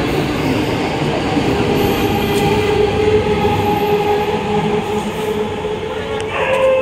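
Electric multiple unit local train running past the platform: a steady rumble of wheels and running gear with a steady whine over it.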